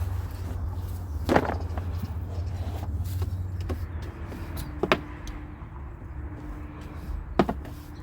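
Three short, sharp knocks spaced a few seconds apart over a low steady rumble, with a faint hum in the middle.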